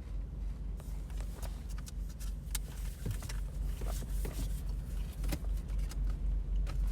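Low steady rumble of a car's idling engine heard inside the cabin, with scattered light clicks and rustles of trading cards and pack wrappers being handled.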